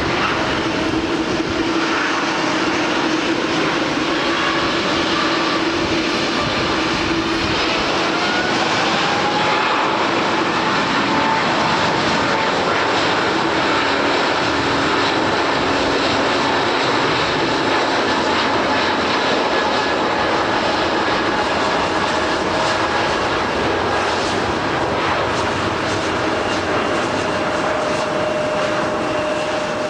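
Airliner engines running loud and steady, a roar with a few held whining tones, one of which rises in pitch about eight seconds in.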